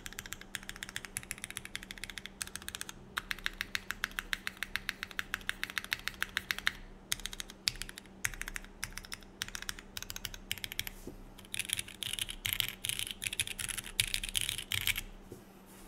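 Typing on a TGR x Singakbd Unikorn mechanical keyboard with lubed Cherry MX Black linear switches (205g0, TX films), an aluminium plate, a drop-in o-ring mount and GMK keycaps. Rapid keystrokes run with a couple of brief pauses, then a fast burst that stops shortly before the end.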